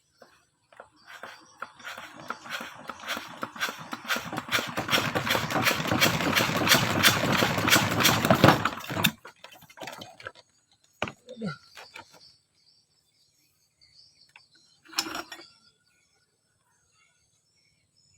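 A machine running with a rapid clattering rhythm. It grows louder over several seconds and stops abruptly, then a few separate knocks follow.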